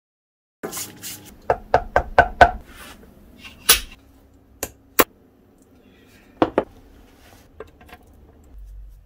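Hammer tapping a punch held in a steel bench block: a quick run of five sharp metallic strikes, then single strikes spaced out and a close pair near the end, with quieter handling clatter between.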